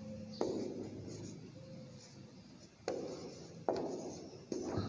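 Marker pen writing numbers on a whiteboard: four short strokes, each starting with a sharp tap of the tip on the board.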